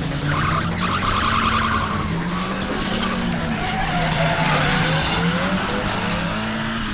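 Car sound effect: an engine note shifting up and down in pitch, with tyre squeals over it.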